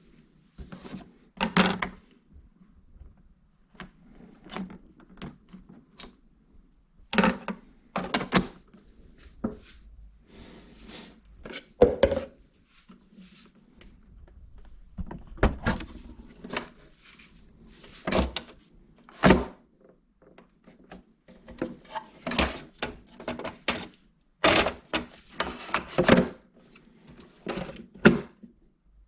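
Irregular plastic clicks, knocks and thunks from handling a Spidem Divina Deluxe bean-to-cup coffee machine: covers and parts are moved and pressed, with about a dozen louder knocks spread through the whole stretch.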